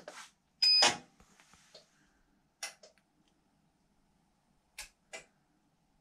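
Buttons pressed on a front-loading washing machine's electronic control panel: a click, then a louder click with a short high beep about a second in. A few more brief clicks follow about 2.5 s and 5 s in.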